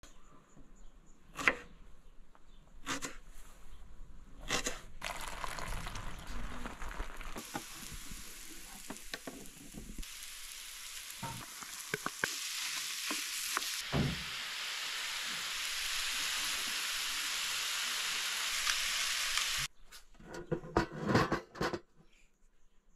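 A few knife chops on a wooden cutting board, then steady sizzling of chopped onion and grated carrot frying in oil in a frying pan, stirred with a wooden spatula. A few sharp knocks near the end.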